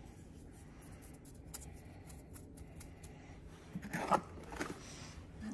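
Hands adding salt from a wooden salt cellar to a food processor bowl: faint scratches and light ticks, then a brief, louder scraping clatter about four seconds in.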